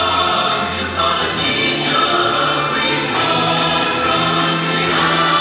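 A group of voices singing a slow song in long held notes that shift every second or two, over a steady low bass note.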